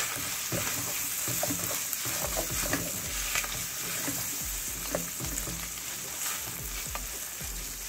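Ground beef sizzling in a hot pan while a wooden spoon stirs it, with frequent short scrapes and taps of the spoon against the pan over a steady hiss.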